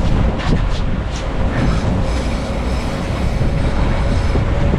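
Outboard engines of a 44-foot Contender fishing boat running steadily under way, with a constant low rumble and a faint steady whine, mixed with wind and water rush. A few short sharp clicks or splashes sound in the first second.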